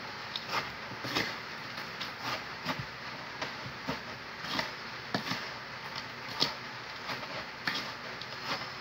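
A spoon stirring flavoured crushed ice in a bowl, mixing it smooth: short scraping, crunching strokes about every half second.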